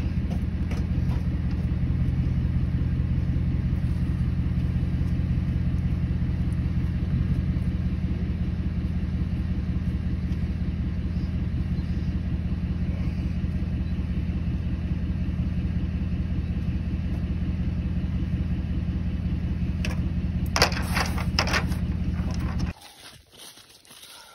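Pickup truck engine idling with a steady low hum, with a few sharp clanks near the end; the hum cuts off suddenly.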